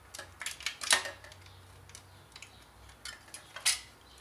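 Plastic and sheet-metal parts inside a projector clicking and knocking as they are pushed into place by hand: a quick run of clicks in the first second, a few light ticks, then one sharper click near the end.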